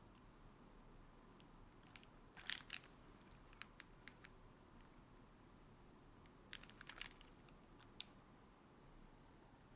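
Sparse keystrokes on a Qi65 R2 prototype mechanical keyboard with a carbon-fibre plate and gasket mount: a short cluster of key clicks about two and a half seconds in, a few single presses, another cluster about seven seconds in and one last press near eight seconds, with near silence between.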